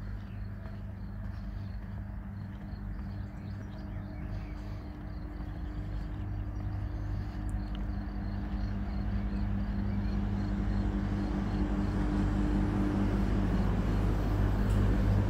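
Steady low hum of a nuclear power plant and its high-voltage switchyard, a drone of a few low tones that grows louder toward the end.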